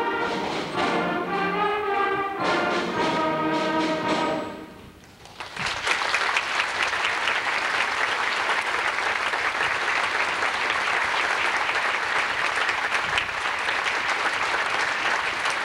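A children's wind band, with clarinets and brass, ends a piece on sustained chords that fade out about four and a half seconds in. After a brief pause, the audience applauds steadily to the end.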